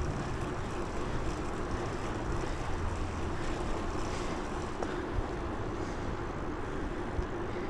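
Steady rush of wind and road noise from riding a bicycle, with wind on the clip-on lavalier mic. A faint steady hum runs under it, and there are a couple of light clicks about five seconds in.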